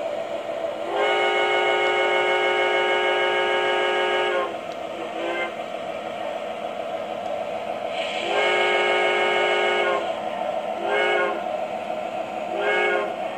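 Sound-system signal blasts from an MTH RailKing O-gauge model locomotive, several tones sounding together: a long blast, a short one, another long blast, then two short ones. Under them runs the steady rumble of the model train rolling along the track.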